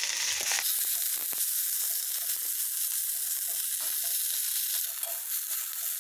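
Strips of chopped banana flower sizzling in hot oil in a kadai: a steady, loud frying hiss, with light scrapes as they are stirred.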